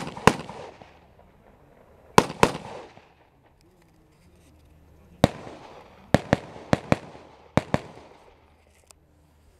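About eleven rifle shots, most fired as quick pairs a fifth to a third of a second apart, each followed by a brief echo.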